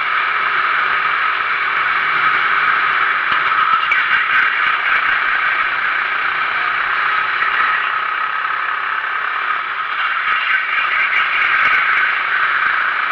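Onboard sound of a Sodi RT8 390cc four-stroke rental kart at racing speed: engine noise mixed with wind rush and the rattle of the camera mount shaking on the kart, a steady noisy rush with no clear engine note.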